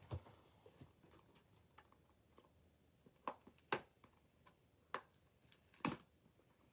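A handful of sharp, separate clicks and taps, about five in all and the loudest a little under four seconds in, from a toy's cardboard and plastic packaging being handled during opening, with near silence between them.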